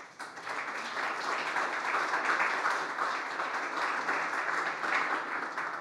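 Audience applauding, swelling over the first second, holding steady, then fading out near the end.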